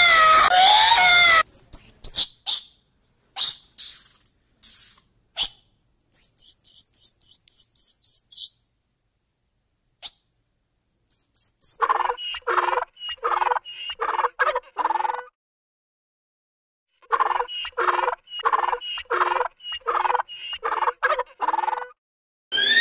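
Animal calls. Scattered clicks and a run of rapid high chirps come in the first few seconds. Then a donkey brays in two long bouts of rapid, repeated calls, about three a second.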